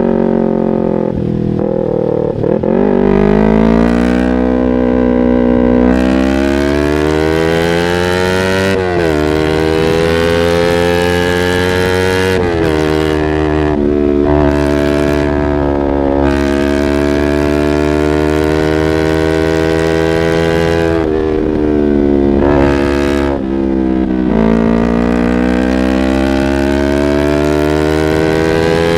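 Yamaha R25's 249 cc parallel-twin engine on a Proliner aftermarket exhaust, under way. Its pitch climbs as it accelerates and drops back at each upshift, holds steady for a while mid-way, then dips and climbs again near the end.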